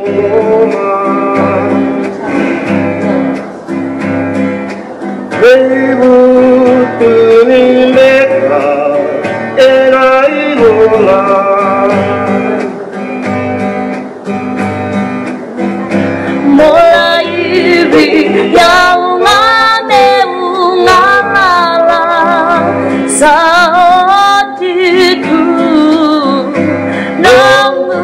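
Background music: a song with singing and guitar over a steady beat.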